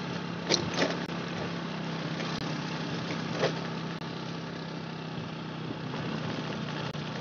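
A small vehicle engine running steadily at an even pitch, with a few short knocks.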